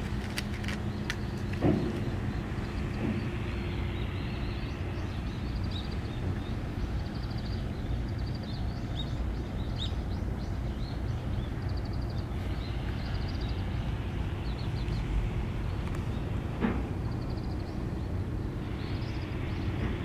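Outdoor seaside ambience: a steady low rumble with small birds chirping at intervals, a faint hum in the first few seconds and a couple of brief knocks.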